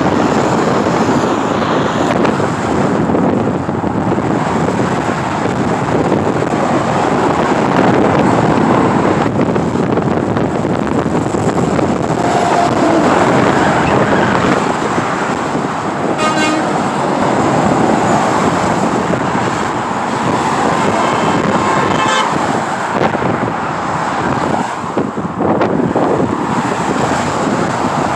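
Interstate highway traffic, cars and trucks passing at speed. A short vehicle horn toot comes about sixteen seconds in, and a longer horn blast of about a second comes around twenty-one seconds in.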